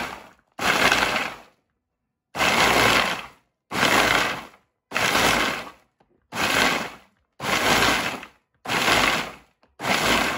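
Electric mini food chopper pulsed about eight times in short bursts, its blade grinding roasted almonds, cashews, pistachios and seeds into coarse crumbs, with the hard nut pieces rattling and crunching in the glass bowl.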